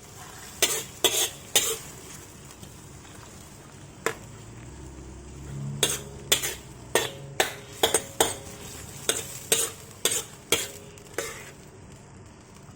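Food sizzling in a frying pan while a cooking utensil stirs it, knocking sharply against the pan over a dozen times at an uneven pace.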